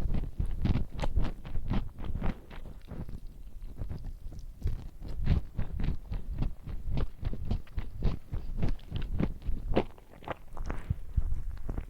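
Close-miked chewing and biting of fried chicken and spaghetti: a dense, irregular run of short wet clicks and crackles, several a second.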